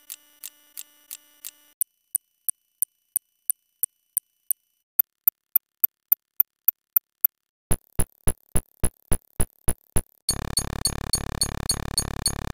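Electronic sound effects: short clicks and blips repeated about three to four times a second, changing to a different sound every two or three seconds. Near the end a louder, noisy buzz takes over, still with the beat.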